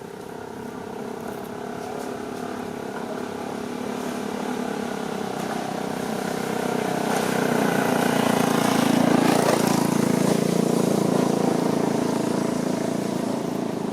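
A motor vehicle's engine passing close by. It grows louder for about nine seconds, then starts to fade.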